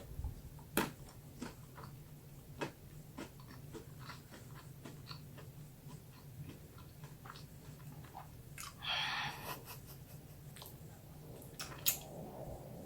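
Close-miked chewing: soft, wet mouth clicks of someone eating a mini Cornetto ice cream cone with vegetarian ham, the cone no longer crunchy. A short breathy hiss about nine seconds in.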